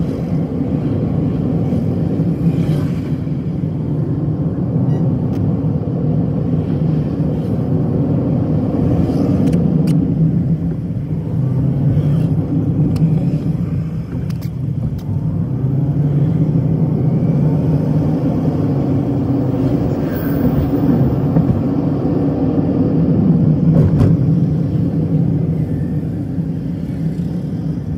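Car engine and road noise heard from inside the moving car's cabin: a steady low rumble whose engine pitch rises and falls as the car speeds up and slows down.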